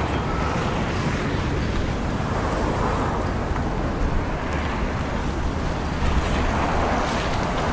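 Škoda Octavia with a 1.6 MPI four-cylinder petrol engine driving slowly toward the listener at low speed, engine and tyres a steady low rumble that swells slightly near the end.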